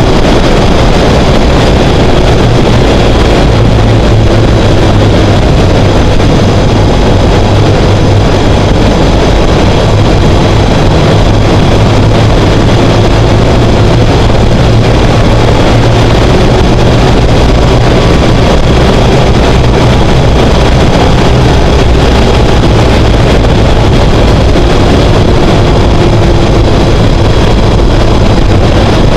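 BMW R1200GS boxer-twin motorcycle running steadily at road speed, a constant low engine drone under loud, even rushing noise.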